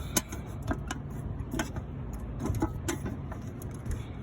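Sharp metal clicks and knocks as a stiff electrical disconnect box cover is worked and pried open by hand, over a steady low hum.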